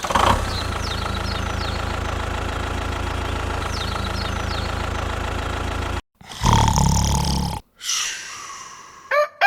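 A motor running steadily with an even drone, faint high chirps over it, cutting off suddenly about six seconds in. Two shorter loud bursts of sound follow near the end.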